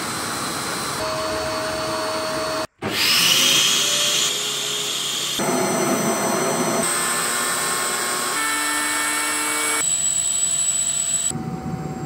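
Old Dyson upright vacuum cleaners running in a string of short clips, each a steady motor whine at its own pitch that changes abruptly at every cut, with a brief dropout about three seconds in. First a turbo brush driven by a DC03's airflow on the hose, then sealed-suction tests with the hose end blocked on a vacuum gauge.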